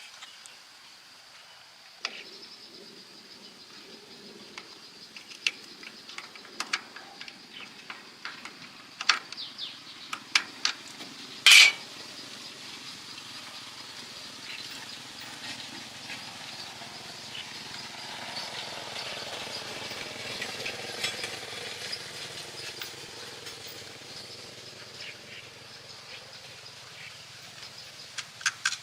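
Scattered sharp clicks and knocks, like tools and metal parts being handled, over a low steady mechanical hum that starts about two seconds in; the loudest knock comes about a third of the way through.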